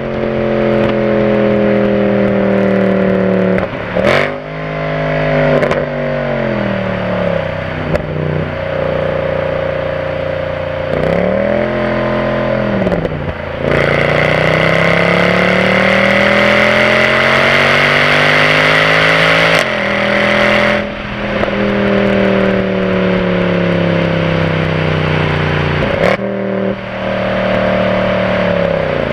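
Mercedes C63 AMG estate's V8 exhaust heard right at the tailpipes while driving. The engine note rises and falls with several abrupt breaks at gear changes. About halfway in comes a long pull of several seconds, rising in pitch with a harder rasp, then the note falls away again.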